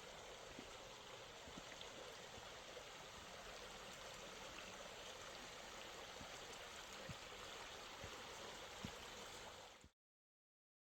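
Creek water flowing steadily, an even rushing with a few faint low knocks, cutting off abruptly to silence near the end.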